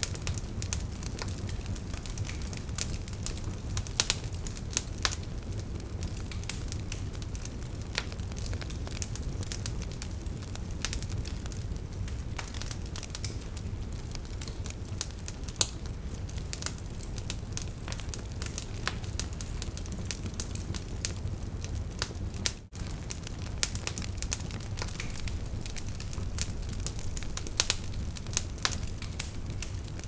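Wood fire crackling: irregular pops and snaps of burning firewood over a steady low rumble of the flames.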